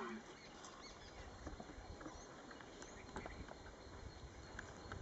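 Faint outdoor ambience: a few scattered light clicks and taps, small high bird chirps, and a faint low rumble.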